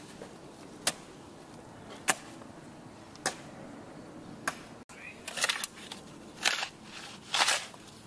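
Footsteps of someone walking over forest ground: a sharp step about once a second, then three louder, longer steps in the second half.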